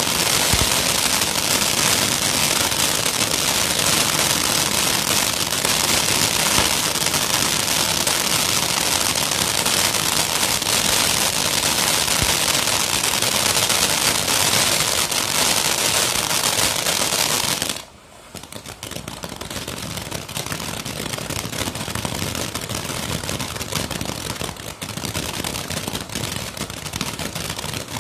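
Ground firework fountain spraying sparks with a loud, dense hiss and rapid crackling pops. About 18 seconds in it cuts out for a moment, then carries on somewhat quieter as the next stage burns.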